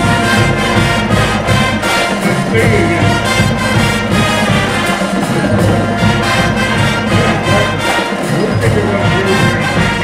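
High school marching band playing on the field: brass over a steady drum beat.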